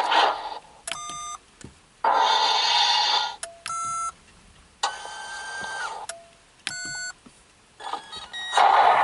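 Electronic sound effects from a K.I.T.T. replica's dashboard consoles: three short chord-like beeps, each about half a second. Between them come three longer hissing electronic bursts of about a second each.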